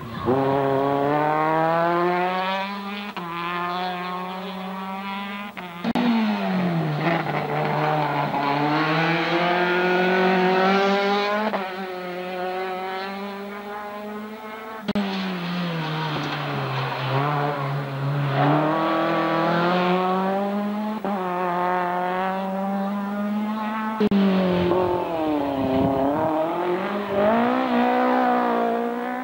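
Small hatchback rally cars climbing a hill-climb course at full throttle, their engines rising steadily in pitch through each gear and dropping sharply at every upshift. The sound breaks off abruptly a few times as one pass gives way to another.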